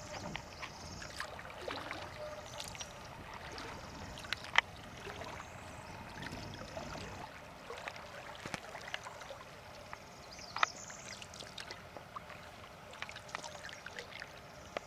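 Water trickling and lapping around a drifting canoe, with scattered small clicks and two sharp knocks, one about a third of the way in and one about two-thirds in.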